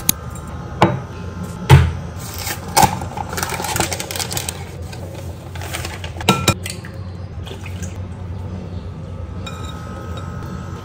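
Kitchenware on a glass mixing bowl: several sharp clinks and knocks in the first few seconds and two more about six seconds in, over a steady scraping and rustling as flour is tipped from a plastic bag into the bowl. Later a whisk stirs batter against the glass.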